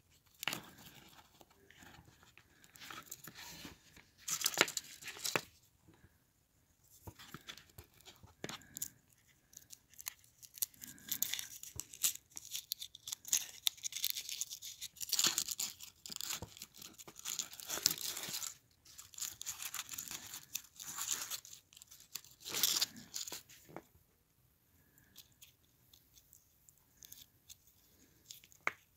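Foil wrapper of a Hershey's Kiss crinkling and tearing as it is peeled off by hand, in irregular rustling bursts. The rustling stops about 24 seconds in, leaving only a few faint ticks.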